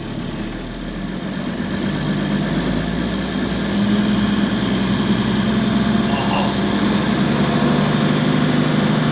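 Engine of an old International grain truck running as the truck is driven, growing louder over the first few seconds and then holding steady.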